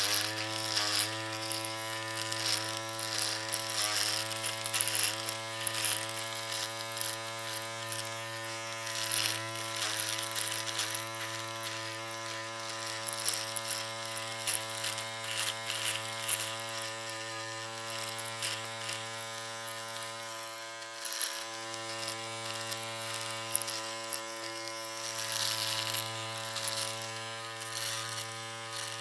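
Electric shaver running continuously: a steady low buzz with a rasping high edge that swells and fades, and a brief dip in the hum about two-thirds of the way through.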